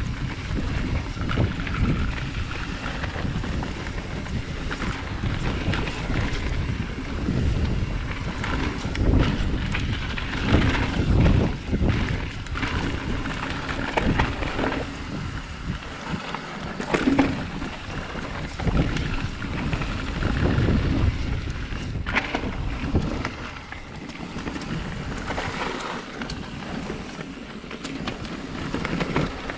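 Mountain bike riding down a dirt trail: wind buffeting the camera microphone over the tyres rolling on dirt. Frequent short knocks and rattles come as the bike goes over bumps.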